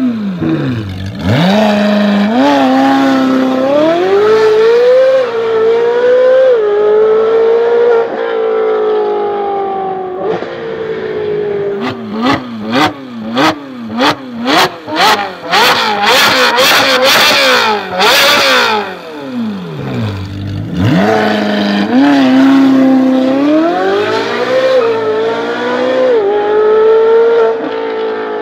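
Ferrari 458 Speciale's 4.5-litre flat-plane V8 through a Fi valved exhaust, revved hard: the revs climb and hold high for several seconds, then a burst of quick throttle blips with sharp bangs from the exhaust, then a fall almost to idle and another long climb in revs.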